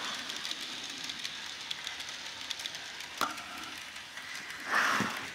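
Bachmann N-scale Durango and Silverton model train running on its track: a faint, steady hissing rattle of wheels and motor with fine clicking. A sharper click comes about three seconds in, and a brief rush of noise just before the end.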